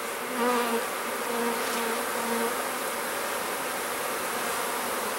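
Honeybees buzzing around an open hive as a brood frame is lifted out, a steady swarm hum. During the first couple of seconds a single bee flies close by with a louder pitched hum that comes and goes.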